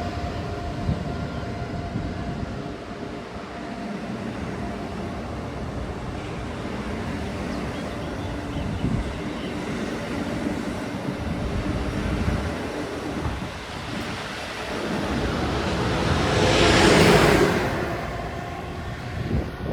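Passenger train running at a station platform: a steady low rumble with a faint hum, swelling to a loud rush about three-quarters of the way through that then fades, as a train moves past close by.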